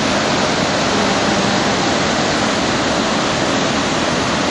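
Waterfall's steady rushing roar, loud and even.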